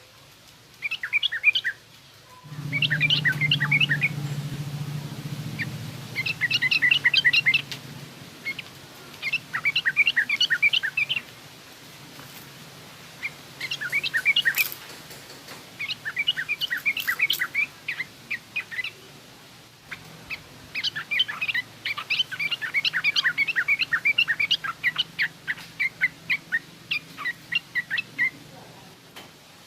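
Yellow-vented bulbul (trucukan) giving rough chattering calls in repeated bouts of quick notes, each bout lasting one to three seconds with short pauses between. A low hum sits under the calls from about two seconds in.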